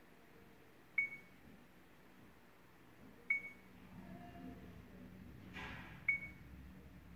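Mio MiVue 786 dashcam's touchscreen giving a short high key-press beep with each tap on the menu: three beeps, a couple of seconds apart.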